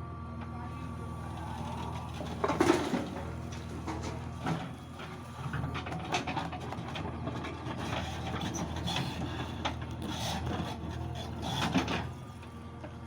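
JCB 3DX backhoe loader's diesel engine running steadily, with intermittent knocks and clatter from the working machine, loudest about two and a half seconds in and again near the end.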